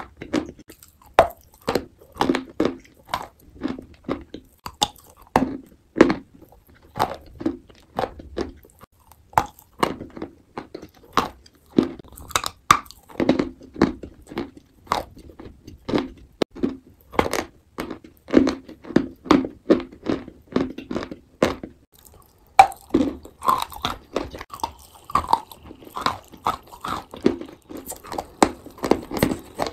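Close-miked crunching and wet chewing of a crumbly white-and-grey block in the mouth, with sharp crunches about one or two a second and a few louder bites.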